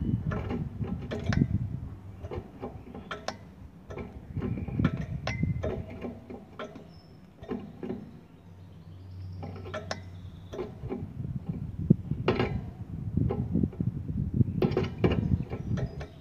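Irregular light clicks, taps and rattles from a wire birdcage, with a few short high peeps. The sounds thin out briefly around the middle.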